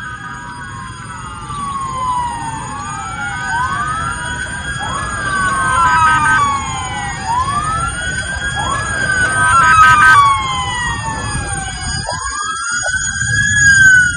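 Several emergency vehicle sirens wailing at once, each tone rising quickly and falling slowly every two to three seconds, growing louder, over a low rumble of traffic.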